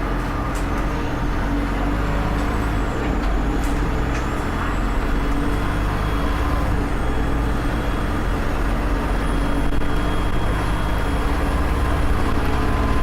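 Volvo B7RLE bus's diesel engine running under way, its turbocharger giving a thin high whistle that climbs slowly in pitch over a steady low engine rumble.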